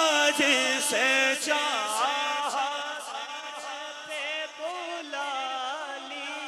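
Male voices singing the refrain of an Urdu naat in long, drawn-out wavering notes. The singing grows quieter about halfway through.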